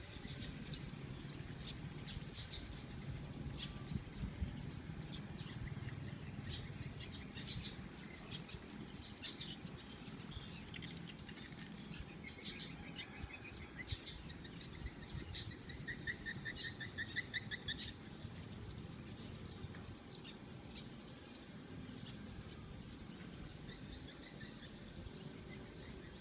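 Wild birds chirping and calling, many short high chirps throughout, with a rapid trill of quick repeated notes about halfway through. A low rumble runs underneath.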